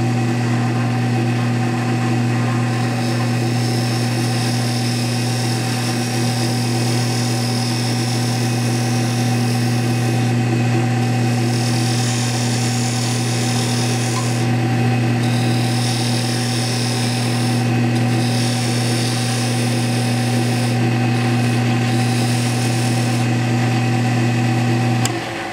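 Wood lathe motor running with a steady hum while a parting tool cuts into a spinning softwood handle blank; the higher cutting hiss comes and goes as the tool is pressed in and eased off. The motor shuts off near the end.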